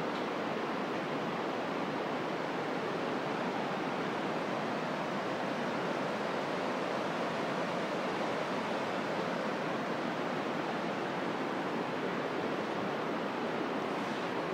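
Steady, even rushing of a mountain river in the gorge below the suspension bridge.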